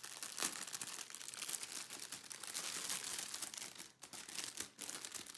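Thin clear plastic packaging crinkling and rustling as hands pull at and move a bag holding a strip of diamond-painting drill packets, with many small crackles and short pauses.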